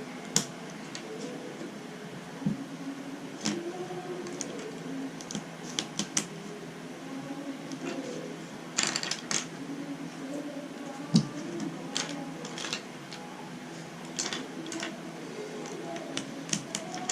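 Plastic Rubik's Cube pieces clicking and snapping as they are handled and pressed back onto the cube's core, in irregular clicks with a louder snap past the middle.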